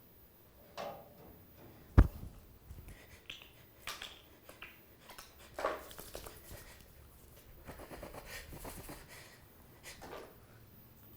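Handling noises in a small room: one sharp knock about two seconds in, then scattered small knocks, clicks and a stretch of rustling.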